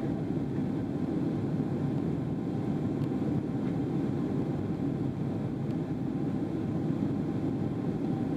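Steady low rush of cabin noise inside a Boeing 777-300ER in flight: its GE90-115B turbofan engines and the airflow over the fuselage, with a faint steady hum riding on top.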